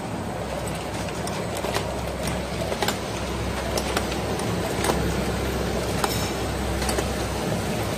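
High-speed spindle-type capping machine running: a steady motor hum with irregular sharp clicks and clatter of caps and bottles moving through it.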